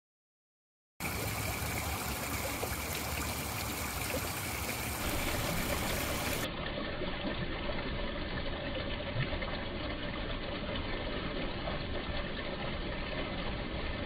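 Small waterfall trickling over rocks into a shallow pool: a steady splashing rush of water that starts about a second in and turns duller about six seconds in.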